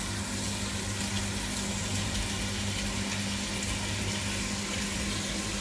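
Lardons frying in melted butter in a pan, a steady sizzle over a low constant hum.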